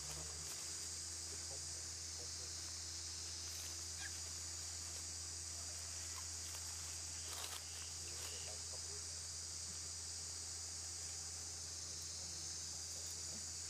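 Insects trilling in a steady high-pitched chorus, over a low steady hum, with a few faint clicks about four and seven seconds in.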